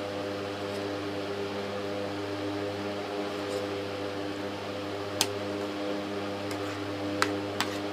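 A steady mechanical hum with an even hiss under it, with a few sharp clinks of a metal spoon against a ceramic plate: one about five seconds in and two more near the end.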